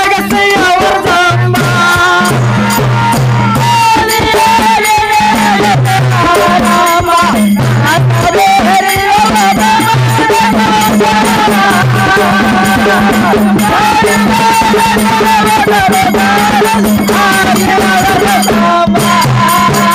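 Live Kannada dollina pada folk music: a sung melody with long held notes over a low drone and a repeating bass pattern, driven by a busy rattling, fast-struck percussion rhythm.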